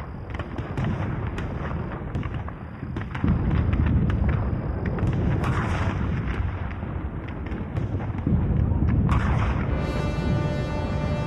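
Battle sound effects: deep rumbling booms of distant cannon fire with scattered sharp gunshot cracks. Dark, sustained music comes in near the end.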